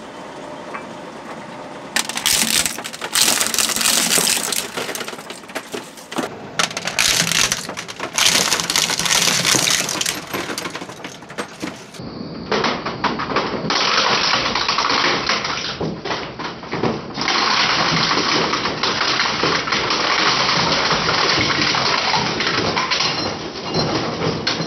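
Twin-shaft shredder chewing up a Sony PSP handheld console: the steel cutter discs turn with dense crunching and sharp cracks of plastic casing, screen and circuit board breaking apart. The crunching starts about two seconds in and carries on loudly.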